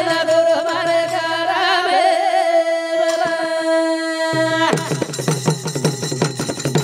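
Banjara devotional folk song: a long held note with a wavering voice at first, then from a little under five seconds in, small brass hand cymbals and percussion strike a fast rhythm.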